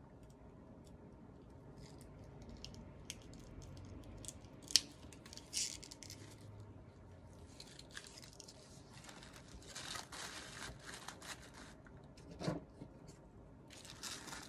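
Organza drawstring gift bags and tissue paper being handled: soft, intermittent rustling and crinkling, heavier in stretches, with a sharp tap about a third of the way in and a soft bump near the end.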